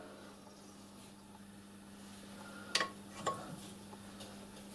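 Two light metal-on-metal clinks, about half a second apart, from the Myford ML7 lathe's independent-jaw chuck being handled while its jaws are adjusted to true the work, over a faint steady hum.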